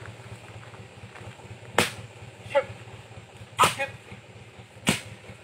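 Three sharp smacks of a stick striking a large snake on the ground, with short shouts between the blows.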